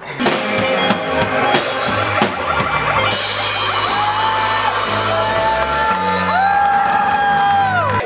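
Live rock band with electric guitars and a drum kit playing loudly, starting abruptly, with long held notes that slide down in pitch near the end.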